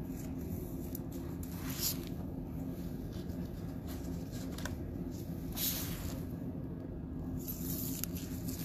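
Trading-card handling: two brief soft rustles, about two and four seconds apart, over a steady low hum.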